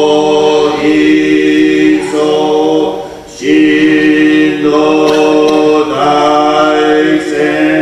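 Two male voices chanting a Buddhist liturgy in unison, long held notes with a short break for breath about three seconds in.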